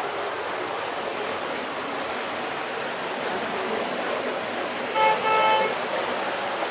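Steady rush of heavy rain and running water, with a vehicle horn honking about five seconds in: a short toot followed by a longer blast of about half a second.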